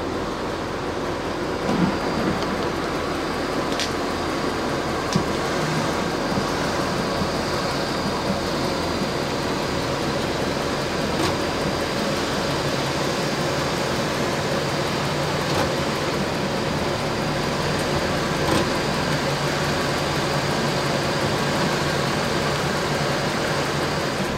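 Electric-hydraulic car lift's pump motor running steadily as the car is raised, a constant hum and hiss that cuts off suddenly at the very end.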